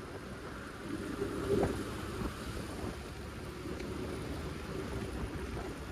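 TVS Apache RTR 180 single-cylinder motorcycle engine running under way, with wind rumbling on the microphone. It gets briefly louder about a second and a half in.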